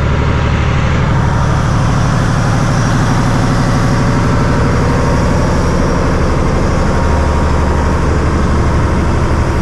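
Fishing boat's engine running steadily as the boat moves at sea, a constant low drone with a hiss of water and wind over it.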